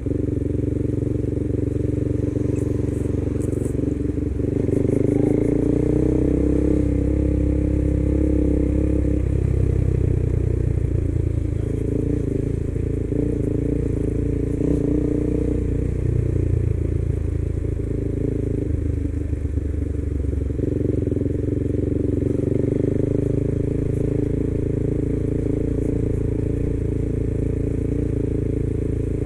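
KTM 390 motorcycle's single-cylinder engine running under way, its revs rising and falling as the bike speeds up and eases off, with a climb in pitch around five to nine seconds in.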